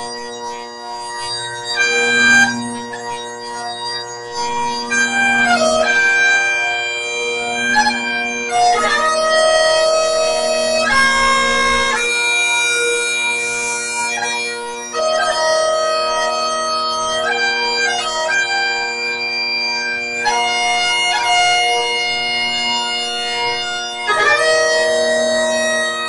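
Great Highland bagpipe playing a slow tune: long held melody notes over the steady drones, with quick grace notes between them.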